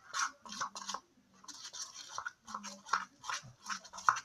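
Shampoo-and-cornstarch slime being kneaded and worked by hand: an irregular run of short squishing and scraping sounds, a few a second.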